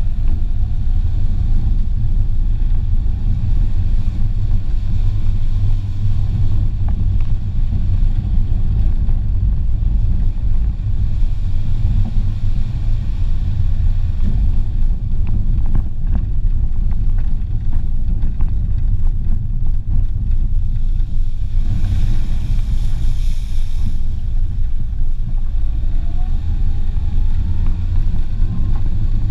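Renault Clio driving along a rough dirt track, heard from a camera on its bonnet: a steady heavy low rumble of engine, tyres and wind on the microphone. A brief hiss comes about three-quarters of the way through, and the engine's whine rises near the end.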